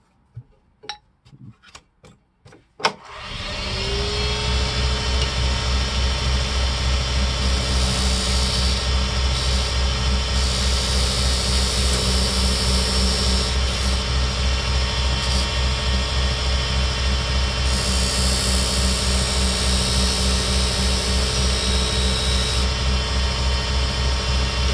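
A few sharp clicks, then a wood lathe starts about three seconds in and runs steadily with a fast pulsing hum. A high hiss comes and goes as a square carbide cutter scrapes out the bore of a desert ironwood burl ring blank.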